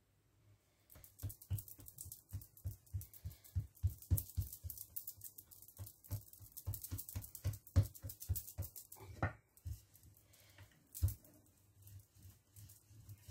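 Hands patting and pressing dough flat against a countertop: a quick run of soft slaps and taps, about four a second, then a few scattered knocks, the loudest about eleven seconds in.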